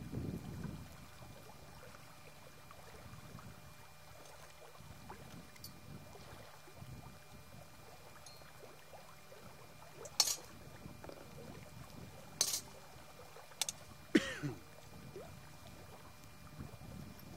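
Metal camp cookware being handled: quiet shuffling at first, then about four sharp clinks of pots and lids in the second half. One clink rings on briefly with a falling pitch.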